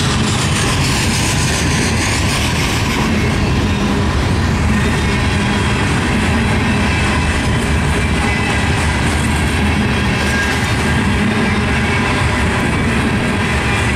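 Loaded Herzog ballast hopper cars rolling past at speed: a steady, loud rumble of steel wheels on the rails.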